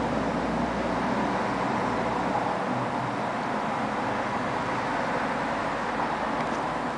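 Scania CN113CLL city bus's diesel engine idling while the bus stands at a stop, heard from inside the passenger cabin; the deep low rumble eases about two and a half seconds in.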